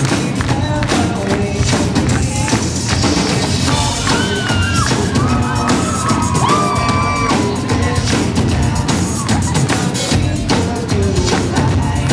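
Live pop band performance heard from the audience: a singer on microphone over a steady drum beat and band, with the crowd cheering.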